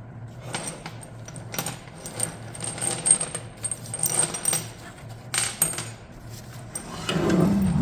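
Metal parts of a burnt Allison six-speed automatic transmission clinking and rattling against each other as its internals are handled and pulled out. The clinks repeat irregularly with a high ringing. A louder, lower sound comes near the end.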